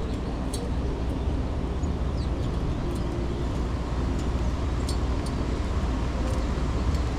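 Steady low rumble of wind and distant city traffic, with a few faint, short high chirps from small birds.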